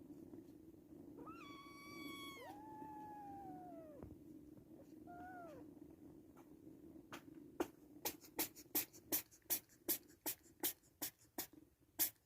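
Nursing kittens mewing: one high call held about a second, a longer one falling in pitch, and a short one. Then, from about halfway through, a steady run of sharp clicks, about three a second, from the kittens suckling.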